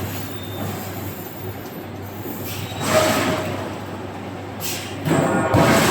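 Forging shop machinery running with a steady low hum, broken by two loud hissing swells, one about three seconds in and a longer one near the end.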